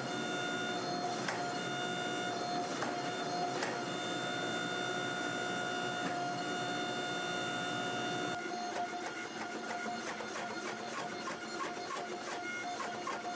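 Hydraulic forging press running with a steady whine while it squeezes a forge-welding-hot canister billet, with scattered clicks and ticks. About eight seconds in, the lower hum drops away and quicker ticking carries on.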